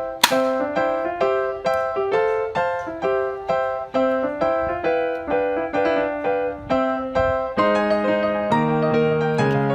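Piano background music, a steady run of single notes with a lower accompaniment coming in about two-thirds of the way through. One sharp click sounds about a quarter second in.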